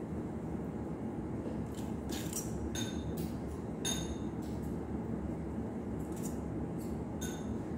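A small metal spoon clinking against a metal bowl and tray while topping is spooned onto dough rounds: about six light clinks, each with a short high ring. Under them runs a steady low rumble.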